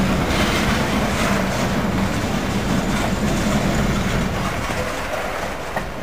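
Freight train boxcars rolling past on the adjacent track: steady wheel-on-rail rumble with some clickety-clack that gradually fades as the cars move away, with one sharp click near the end.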